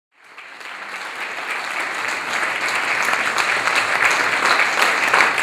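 Audience applauding steadily, fading in over the first second.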